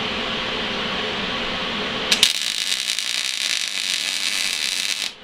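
MIG welding arc from an Eastwood MIG250 on mild steel: over a steady hum, the arc strikes about two seconds in with a sharp crack and then crackles steadily through a short weld of about three seconds before cutting off abruptly.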